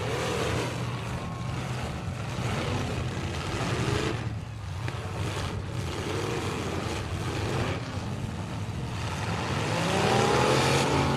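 Several demolition derby cars' engines running together, revving up and down as the cars reverse and charge on the dirt; the revs swell and fall a few times, loudest about ten seconds in.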